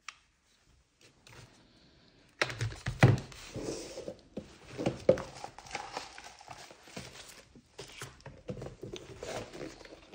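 Handling of an airsoft pistol's packaging: rustling and crinkling with irregular knocks and clicks, starting about two and a half seconds in after a single click.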